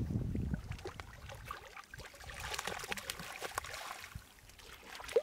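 Hooked brown trout splashing at the surface in shallow water and being scooped into a landing net, a run of small splashes and water sloshing through the mesh. A low rumble at the start and a short sharp knock right at the end.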